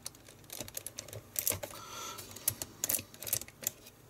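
Irregular clicks and clacks from a BBC data recorder's cassette mechanism being worked by hand: its piano-key transport buttons are pressed and its levers and gears moved while the deck's rewind fails to engage.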